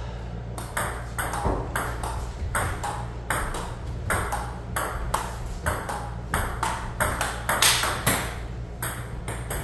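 Table tennis rally: the ball clicks off the paddles and the table in quick, regular alternation, about two to three clicks a second.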